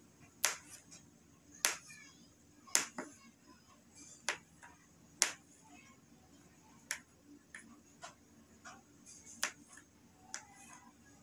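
Kitchen knife cutting a potato into cubes, the blade knocking against the cutting board in sharp, single taps about once a second at an uneven pace.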